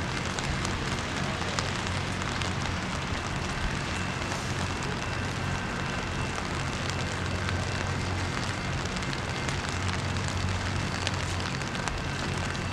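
Steady rain pattering, full of fine crackling drops, over a low steady rumble.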